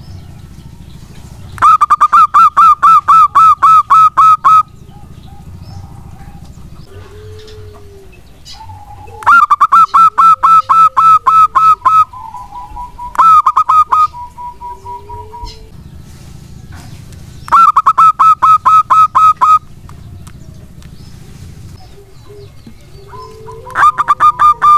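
Zebra dove (perkutut) calling: loud bouts of rapid, evenly repeated cooing notes, about four or five a second, each run lasting one to three seconds. Four bouts come with short pauses between them.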